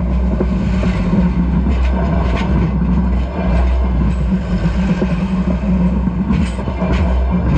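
A train's cars rolling directly over the rails above, a loud steady low rumble. Sharp wheel clacks come in pairs about two and a half seconds in and again about six and a half seconds in.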